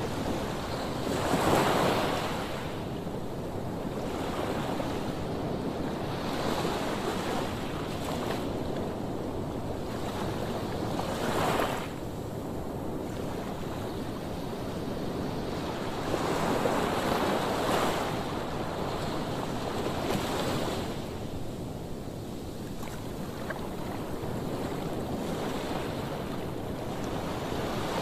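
Sea waves surging and breaking on a sandy shore, several swells building and falling away over the stretch.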